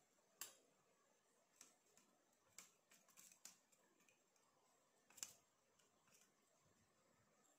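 A steel spoon stirring a thin maida-and-water paste in a stainless steel bowl, clinking faintly against the bowl at irregular moments, with several clinks close together in the middle.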